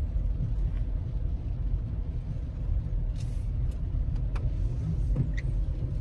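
Steady low rumble of a car's engine and road noise heard from inside the cabin, with a few faint clicks or knocks.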